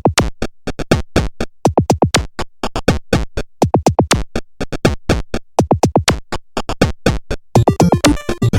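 Electronic music made of rapid synthesized drum-machine hits, several a second, each sweeping down in pitch. Near the end a denser texture with steady synth tones comes in.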